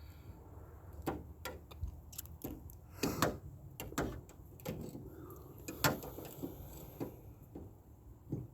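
Irregular clicks and knocks of a 2015 Nissan Rogue's exterior door handle and its parts being handled and fitted into the door, the loudest about three and six seconds in.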